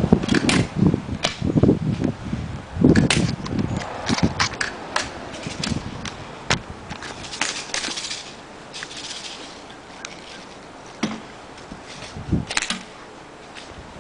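Airsoft guns firing scattered single shots: sharp pops at irregular intervals, thinning out in the second half. Low muffled thumps and rustling in the first few seconds.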